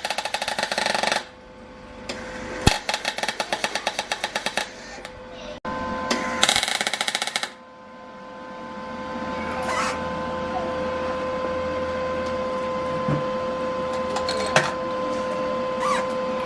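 Electric welder arcing in three short bursts, a fast even crackle, as the star gears of a Holden VS Commodore differential are welded together to lock it. Afterwards a steady hum with a fixed tone runs on.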